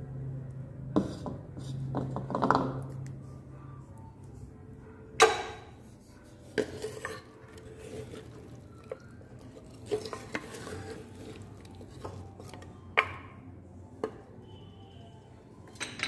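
A spoon stirring and scraping in an earthen handi pot, with about seven sharp clinks and knocks against the clay spread through.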